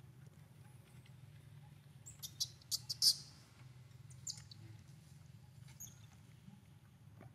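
Baby macaque giving a quick series of shrill squeaks about two to three seconds in, then a couple of single squeaks, the frightened calls of a young monkey as an adult macaque comes close.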